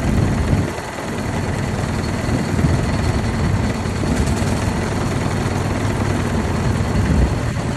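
1903 Cadillac's single-cylinder engine running at idle while the car stands still, with city traffic around it.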